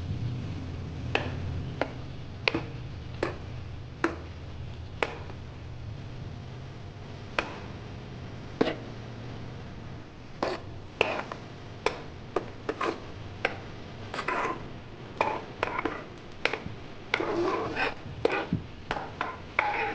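Metal spoon tapping and scraping against the pot of a small electric cooker while pressing and stirring butter melting in oil, over a faint sizzle. The clicks come every second or so at first, then quicker and more irregular from about halfway through.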